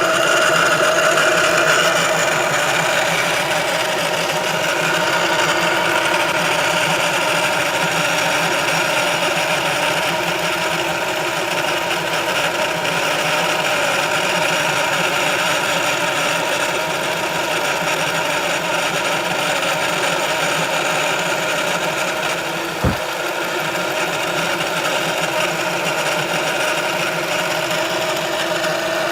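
Ford Focus giving off a steady mechanical buzz with several held tones, an abnormal noise that the owner puts down to the transmission control module (TCM). One short thump near the end.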